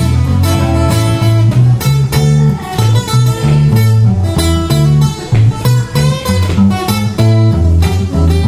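Solo acoustic guitar playing an instrumental break: picked notes over a steady, rhythmic bass line that alternates between two low notes.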